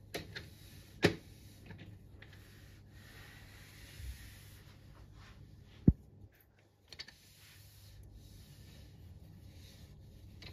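Quiet room tone with faint rubbing and a few sharp clicks and knocks: one click about a second in and a louder low knock near six seconds.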